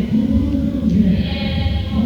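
Background music with a sung, chant-like vocal line held over a steady low accompaniment.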